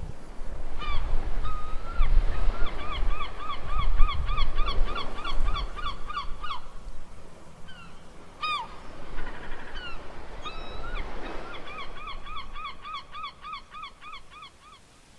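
Birds calling in fast runs of short honking notes, about three a second, in two long series with single calls between, over a low rumble.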